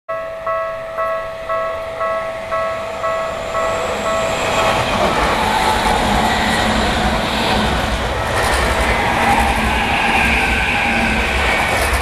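Japanese railway level-crossing warning bell ringing, a repeated ding about twice a second. From about five seconds in, an electric Tokyu Toyoko Line commuter train runs past close by, and its wheel and running noise drowns out the bell.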